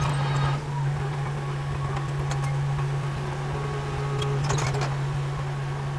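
Heavy diesel earthmoving machinery, a bulldozer or dump truck engine, running at a steady even speed. A short cluster of clicks and rattles comes a little past the middle.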